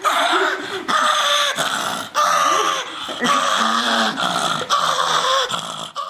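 A dog yelling in a tantrum: a string of drawn-out grumbling calls that bend up and down in pitch, each broken by a short pause, cutting off abruptly at the end.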